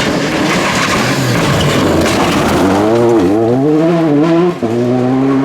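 Rally car engine revving hard as the car goes by, its pitch swooping up and down through gear changes, with a short break in the sound about four and a half seconds in before it holds a high note.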